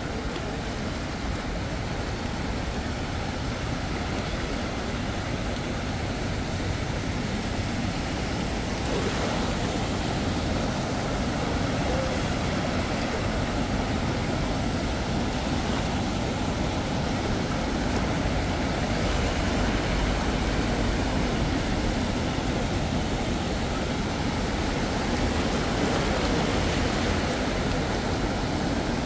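Steady vehicle noise, a low hum under a constant hiss, growing a little louder about nine seconds in.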